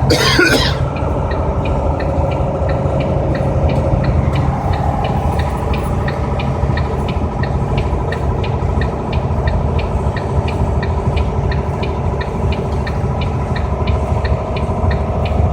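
Car engine and road noise heard from inside the cabin while driving, steady, with a rapid even ticking of about three ticks a second. A short hiss comes right at the start.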